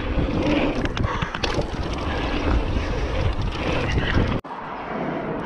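Wind buffeting an action-camera microphone over a mountain bike rolling fast on hard-packed dirt jumps, with knocks and rattles from the bike. The rush cuts off suddenly a little over four seconds in, leaving a quieter, steadier background.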